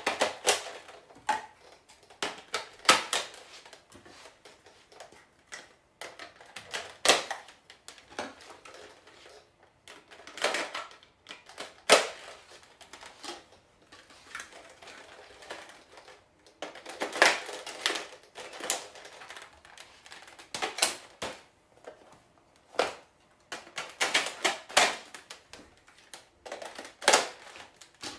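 Plastic clicks and clacks of a foam-dart toy blaster being handled and worked, in irregular clusters of sharp snaps.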